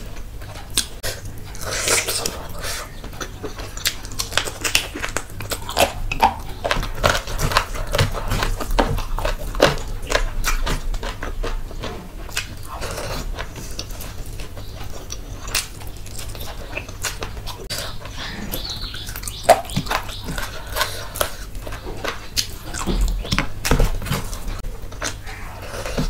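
Close-miked eating sounds: wet chewing and lip smacking of rice and curry, with fingers squishing rice and gravy in a steel plate. A dense run of short, wet clicks and smacks.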